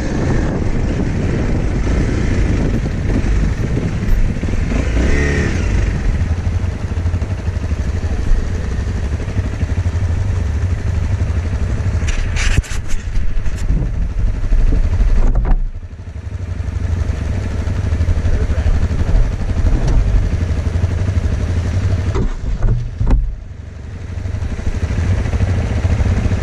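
Dirt bike engine running as the rider climbs a rough trail, with the bike clattering over the ground. The engine note drops off briefly twice, about two-thirds of the way through and again near the end, before picking up again.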